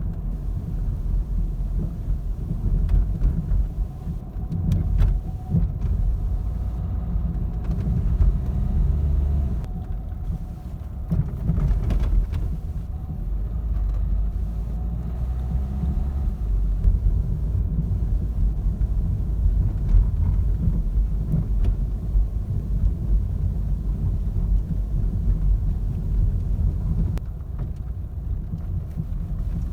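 Low, uneven rumble of a Renault car over the road, with a few sharp knocks from the suspension: the knock of worn anti-roll bar (stabilizer) links.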